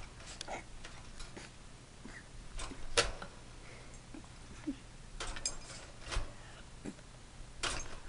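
Irregular metallic clicks and rattles from a wire budgie cage as a puppy paws at its bars, the loudest knock about three seconds in.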